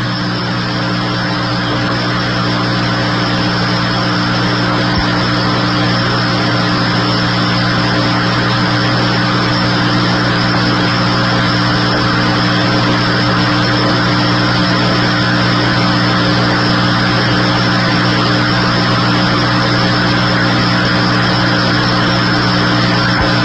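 A motor running at a constant speed, a steady hum of several unchanging tones over a hiss, with no change in pitch or loudness.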